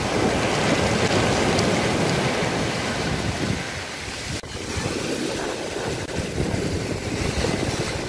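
Sea waves breaking and washing onto the shore: a steady rushing surf that swells louder over the first few seconds, with wind buffeting the microphone.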